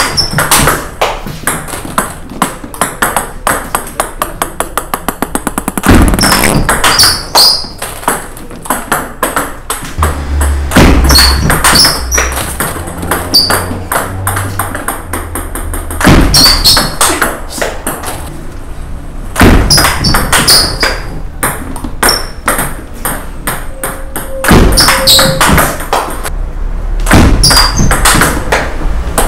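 Table tennis ball clicking off paddles and the table in several short, fast rallies: a serve answered by a quick forehand topspin attack, with brief pauses between points.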